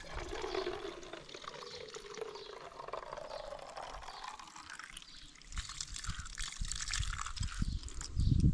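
Cold spring water running from a fountain tap into a container, with a note that rises over the first few seconds as it fills. Low thumps follow in the second half.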